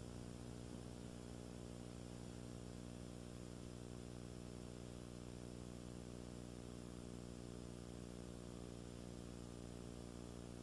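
Faint, steady electrical hum with hiss, the background noise of an old VHS tape transfer; nothing else is heard.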